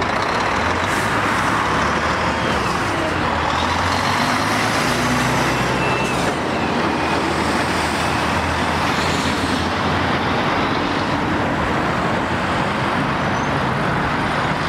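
Volvo FH heavy-haulage tractor unit's diesel engine running steadily as it drives close past, towing a low-loader trailer, over the steady noise of road traffic.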